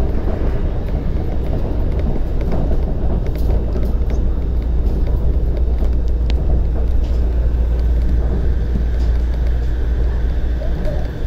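On-board running noise of a Shonan Monorail 5000 series suspended car, a rubber-tyred train hanging from an overhead beam: a steady low rumble with scattered light clicks and rattles as it runs into a station, easing slightly near the end.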